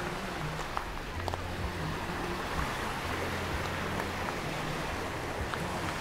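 Surf washing onto a beach: a steady, even wash of noise with a faint low hum underneath and a few light clicks.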